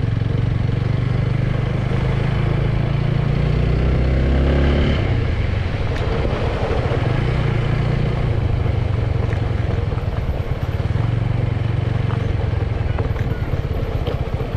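Motorcycle engine running under way, rising in pitch for a few seconds, then easing off about five seconds in and running on steadily, over a constant rush of wind and road noise.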